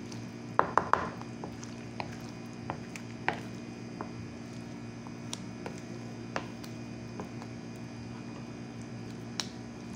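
Wooden spatula mixing moringa leaves into batter in a bowl: wet squishing with irregular knocks of the spatula against the bowl, three quick knocks close together about half a second in, over a steady low hum.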